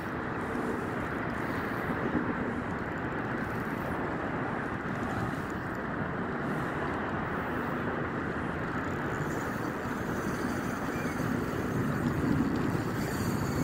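Steady wind and sea noise: an even low rumble with no distinct events.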